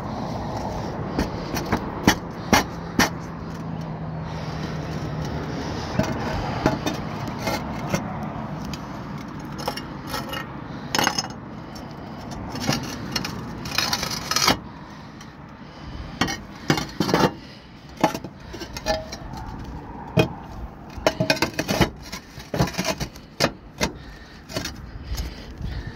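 Concrete roof tiles knocking and scraping against each other as they are lifted and slid into place: a string of sharp clacks, thickest in the second half, over a steady background rumble that drops away about halfway through.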